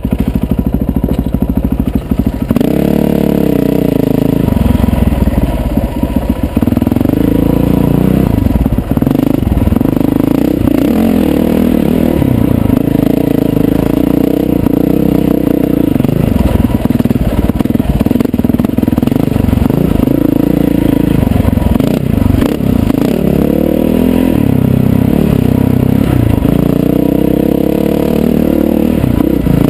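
Dirt bike engine running under load on a rocky singletrack climb, its pitch rising and falling as the throttle is worked, heard from the rider's helmet camera. Rocks scrape and clatter under the tyres.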